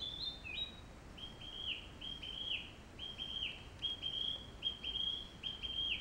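A small songbird singing a quick run of short, high, clear notes, each holding its pitch and then dropping at the end, about two a second and often in pairs.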